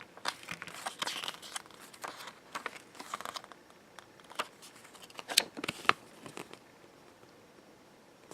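Paper rustling and crinkling as a small folded user manual is handled and opened, with a few sharp snaps of the paper about two-thirds of the way through.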